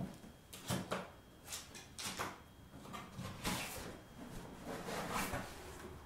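Cardboard box being opened by hand: the lid and flaps are lifted and slid apart, giving about five short cardboard scrapes and rubs.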